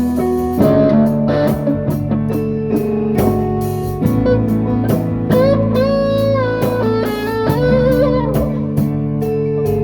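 A band playing instrumental music at a sound check: guitar lines with bending, wavering notes from about halfway through, over a steady drum beat.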